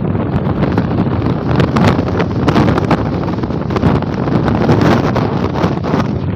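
Strong wind buffeting the microphone in gusts, a loud rough rumble that flares up again and again.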